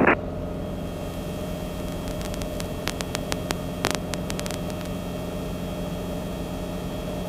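Steady cabin drone of a Cabri G2 helicopter in level cruise: the four-cylinder piston engine and rotors running evenly with a constant hum. A short run of faint clicks comes about three to four seconds in.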